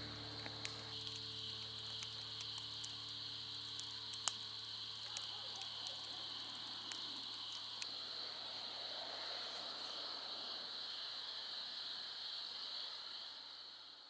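Night insect chorus, a steady high-pitched chirring, with scattered faint clicks; it begins to fade near the end.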